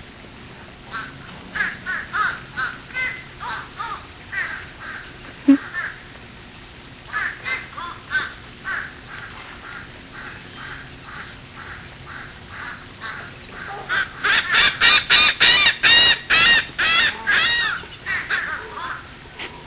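A bird calling again and again in short calls that come in scattered runs, then a fast, loud run of calls from about 14 seconds in.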